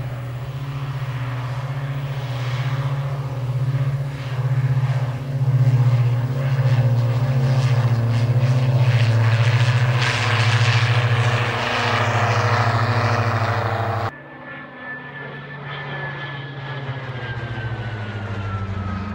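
Diamond DA62 twin-engine aircraft taking off, its two Austro Engine four-stroke diesel engines and propellers at full power in a steady, throbbing drone. After a cut about fourteen seconds in, a twin-engine propeller aircraft passes overhead, quieter, its tone falling steadily in pitch.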